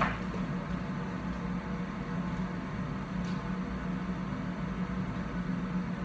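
Steady low hum with a constant background hiss: the room tone of a small room with no one near the microphone.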